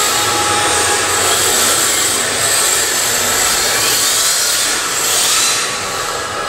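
Electric motors of MST RRX-D 2WD radio-controlled drift cars whining steadily as the cars drift together, mixed with a loud, even hiss.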